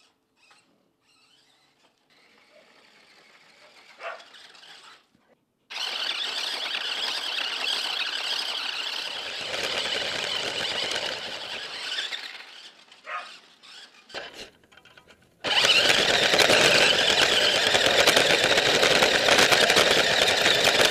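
Remote-control car's motor and drivetrain running loud and high-pitched as it drives over grass, heard close up from the car itself. It runs in spurts: starting about six seconds in, stopping after about six seconds, a few short blips, then running again from about fifteen seconds in.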